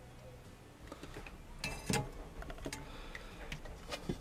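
Handling noise from a plastic LED bulb housing: scattered light clicks and knocks, with a short rustling scrape about two seconds in.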